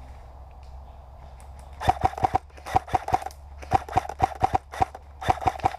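Airsoft electric rifle firing quick bursts of four or five sharp shots at a time, starting about two seconds in, about four bursts in all.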